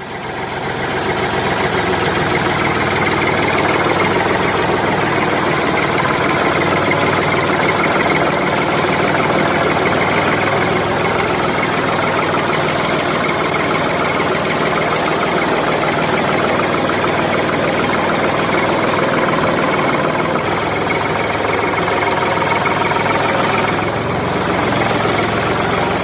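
Tractor engine running steadily at an even speed with a rapid knocking beat, cutting in and out abruptly.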